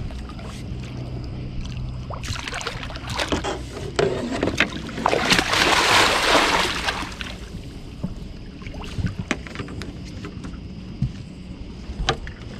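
Big catfish thrashing and splashing at the water's surface as it is scooped into a landing net, the heaviest splashing about five to seven seconds in. Scattered knocks follow as the net is brought aboard onto the boat's deck.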